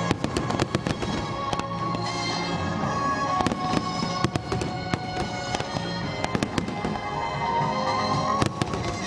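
Aerial firework shells bursting in quick succession, a series of sharp bangs and crackles, with a tight cluster of bangs near the end, over the display's accompanying music.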